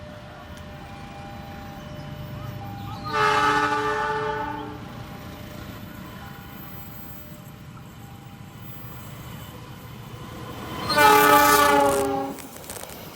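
Train horn sounding two long chord blasts about eight seconds apart, the second louder, over the low rumble of a train.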